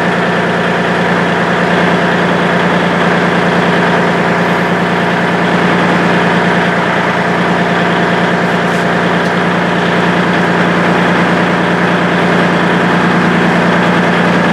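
Kubota L2501 compact tractor's three-cylinder diesel engine idling steadily.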